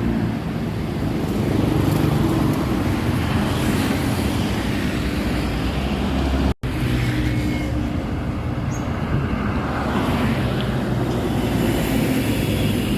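Road traffic passing, with a steady low engine drone from large vehicles; the sound cuts out for an instant just over halfway through.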